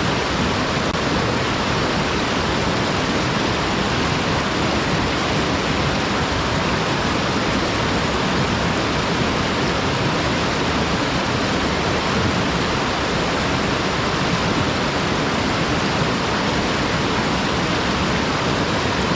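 Waterfall: water running straight down a flat, unobstructed rock slope, a steady, even rush of water that does not change.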